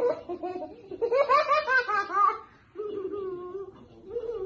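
Person laughing in quick bursts, followed by a long drawn-out vocal sound in the second half.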